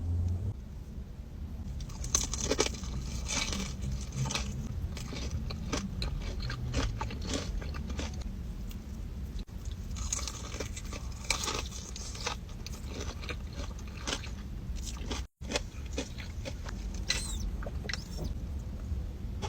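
Close-miked eating: crunchy bites and chewing of crisp food, a long run of sharp crackling crunches.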